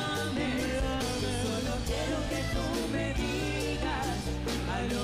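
Live vallenato band playing an instrumental passage: an accordion-led melody over a steady bass line and percussion.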